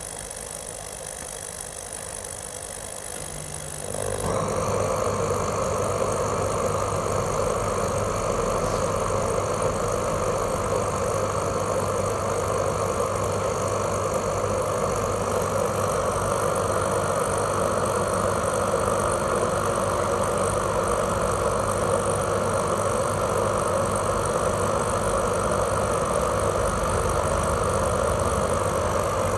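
Orion ecodan HCM10 kerosene infrared heater starting up: about four seconds in, its burner fan and flame come on with a sudden rise to a steady rushing noise over a low hum, which then runs evenly. Before that, only faint high-pitched tones are heard.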